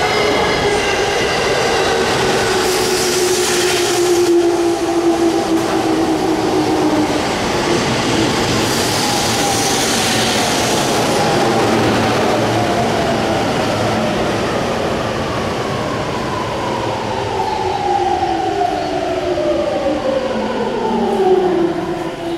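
JR East E231 series 800-subset electric train's Mitsubishi IGBT-VVVF inverter, the 'ghost inverter', whining while braking, over rolling wheel and rail noise. Its stacked tones fall steadily in pitch, twice over, and die away near the end as the train slows.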